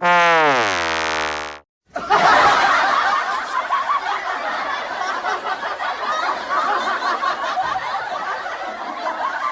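A short sound effect: a loud pitched tone sliding downward, cut off after about a second and a half. Then a crowd laughing, which slowly fades.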